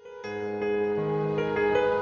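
Slow instrumental background music with sustained chords; it cuts out for an instant at the start, then comes back in and grows louder.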